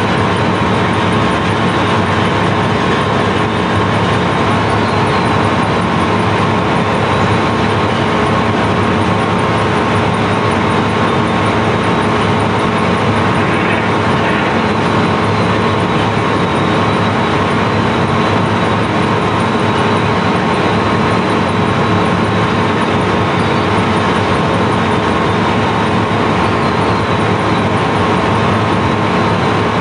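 Steady, loud drone of heavy sand-unloading machinery, the pumping plant drawing sand out of the barge's hold through large pipes. It is a constant hum with a few fixed tones over an even hiss, and it does not change.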